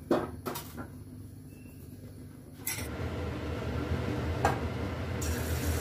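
A few light clicks of utensils against the pan, then about three seconds in a steady hiss with a low rumble comes in: the gas burner under an iron kadai and refined oil heating up for frying.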